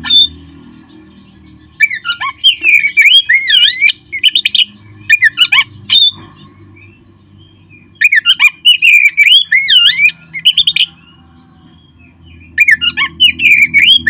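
Oriental magpie-robin (kacer) singing: loud bouts of fast, warbling, sweeping notes, four bouts of one to three seconds each with short pauses between.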